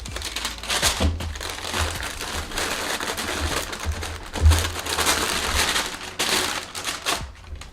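Packing paper inside a shoe box crinkling and rustling as it is handled during unpacking.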